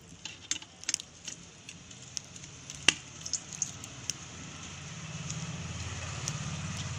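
Scattered clicks and scrapes of besan dough being rubbed through a perforated metal skimmer, then hot mustard oil sizzling as the dropped bits of dough fry, the sizzle growing from about halfway. A low hum rises underneath near the end.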